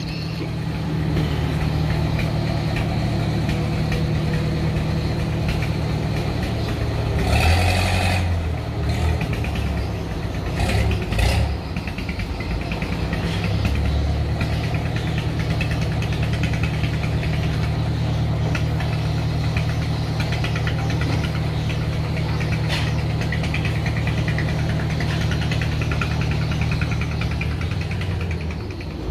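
Boat engine idling steadily with a low, even hum, with brief louder noisy stretches about seven and eleven seconds in.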